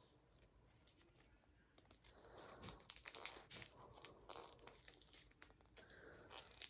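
Crinkling and rustling of a toy capsule's wrapping being peeled and torn open by hand, in irregular crackly bursts starting about two seconds in.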